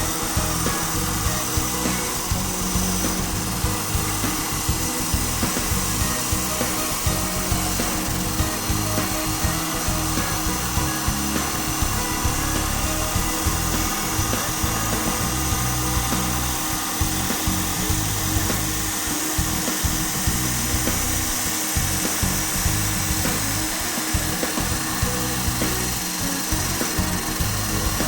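Automatic CNC wood lathe running steadily, its cutter shaving a spinning wooden blank, with a continuous high-pitched cutting noise. Background music plays along.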